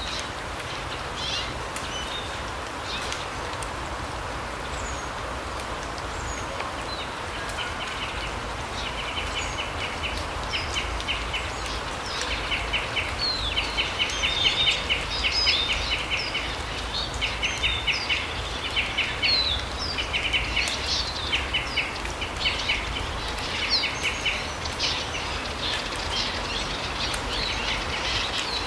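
Small forest birds calling over a steady background hiss: short high chirps throughout, and from about a quarter of the way in, repeated rapid trills, each about a second long, that grow louder toward the middle.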